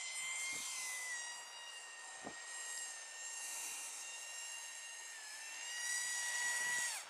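Small 1S brushed-motor foam flying wing's motor and propeller whining at a steady high pitch, dipping slightly now and then, growing louder near the end and then falling away sharply.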